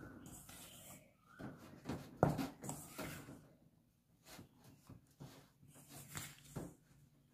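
Silicone spatula chopping and folding thick cookie dough in a stainless steel bowl: irregular scraping and dabbing strokes against the metal, the loudest a sharp scrape about two seconds in.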